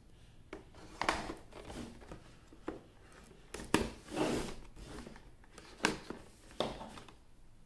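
Tape seals on a small cardboard box being slit and peeled: a few scattered short scrapes and rustles of tape and cardboard, with the box shifting on the table.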